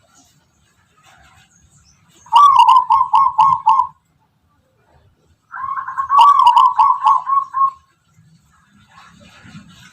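Zebra dove singing two phrases of quick, rolling coos, each about two seconds long, with a pause of under two seconds between them.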